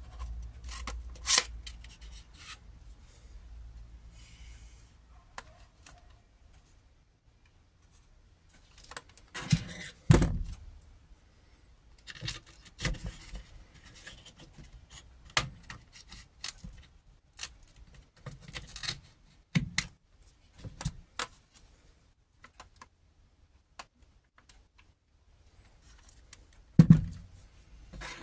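Irregular clicks, knocks and scrapes of a cordless jigsaw and its wooden saw table being handled and fitted together, with heavier thumps about ten seconds in and near the end. The saw's motor is not running.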